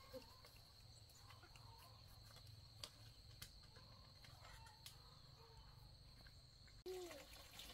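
Near silence: faint rural background with a steady high insect drone, which cuts off abruptly about seven seconds in, with a few faint ticks.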